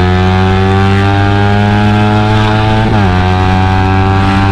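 Suzuki GSX-R150's single-cylinder engine through a WRX GP5K1 full-system aftermarket exhaust, pulling hard under acceleration with the pitch climbing; about three seconds in, an upshift drops the pitch sharply before it carries on steadily.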